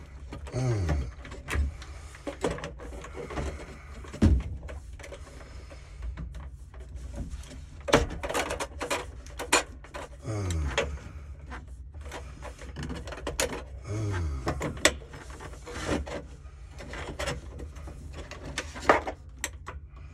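Hands-on work with tools and parts: scattered sharp clicks and knocks, with several short sounds that drop quickly in pitch.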